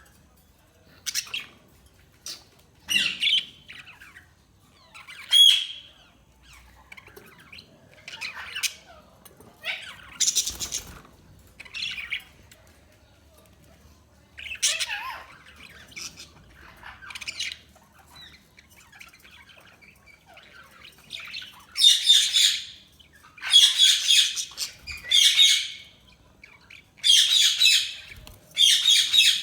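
Budgie (budgerigar) chirping and squawking in short separate calls, scattered at first. In the last third the calls come louder and closer together.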